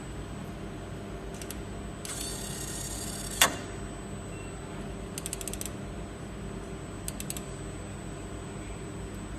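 Small mechanical clicks and ratcheting over a steady machine hum: a short rattle ending in one sharp loud click, then a quick run of about eight ticks and a few more ticks a second or so later.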